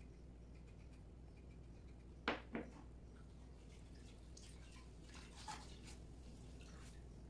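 A kitchen knife set down on a plastic cutting board, giving two sharp knocks about two seconds in, then faint wet sounds of a sponge being lifted and wrung out over a steel bowl of water.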